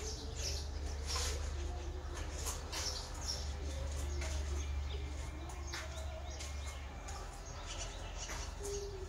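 Small birds chirping, many short high calls scattered throughout, over a steady low hum.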